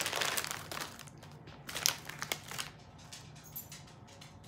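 Crinkly plastic chip bag rustling and crackling as a hand digs in for a Takis chip, busiest in the first second, then a few scattered crackles.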